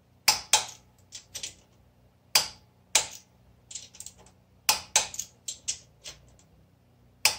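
Click-type torque wrench clicking as the rocker-shaft support nuts on a 1974 BMW R90/6 cylinder head are brought to torque, with lighter clicks in between from handling the wrench on the nut: about a dozen sharp metallic clicks at irregular intervals.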